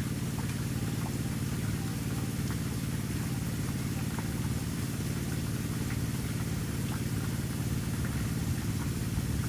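A steady low engine hum, like a motor running at idle, even and unchanging.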